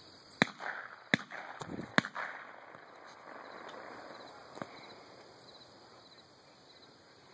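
Shotgun fire from dove hunters: three loud shots in under two seconds with a fainter one among them, then a single more distant shot a few seconds later, each echoing.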